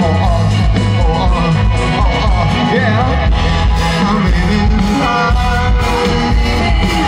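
Live rock band playing loudly: drums, bass and guitar, with a man singing into a microphone over them.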